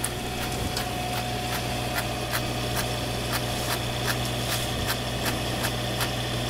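A steady mechanical hum, like an engine running, with a light regular tick about three times a second.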